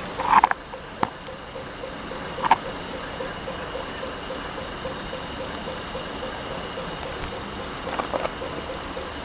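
Stationary steam locomotive simmering: a steady hiss with a faint regular beat about four times a second. A few short clanks break in, the loudest about half a second in and others around two and a half and eight seconds.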